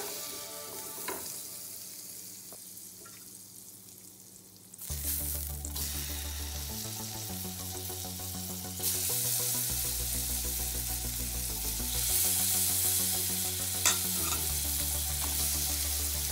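Shrimp frying in melted butter in a frying pan: a sizzle that grows louder after about nine seconds as more shrimp go in. Background music with a deep, stepping bass line comes in about five seconds in.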